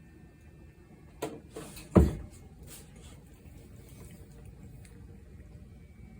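Two sharp knocks about three-quarters of a second apart, the second much louder, over a faint steady background.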